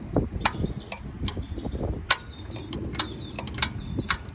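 Irregular sharp metal clicks and clinks of hand tools, a socket wrench working on the water pump bolts, over a low steady background rumble.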